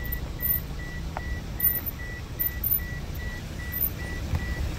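Electronic beeping: a single high tone repeating steadily about three times a second, over a continuous low rumble.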